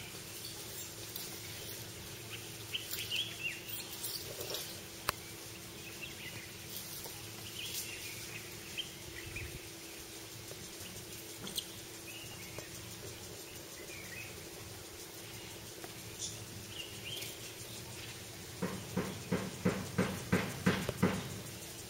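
Scattered short bird chirps over a steady outdoor background. Near the end comes a run of about eight dull thumps, about three a second, louder than the chirps.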